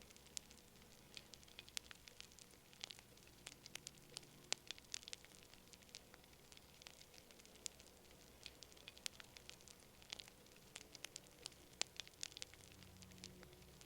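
Campfire crackling faintly: irregular sharp pops and snaps of burning wood, a few louder than the rest, over a soft low hiss.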